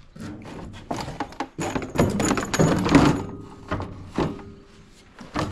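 Loose plastic body panels on a John Deere AMT 600 utility vehicle being handled and worked loose: a string of knocks, clicks and rattles, busiest and loudest in the middle.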